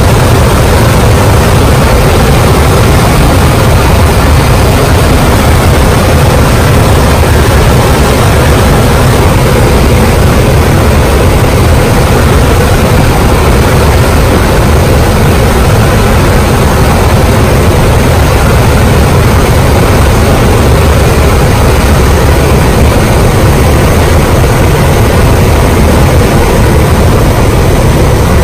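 Twin-turboprop jump plane's engines at climb power, heard through an open jump door together with the rush of air, loud and steady throughout as the aircraft takes off and climbs.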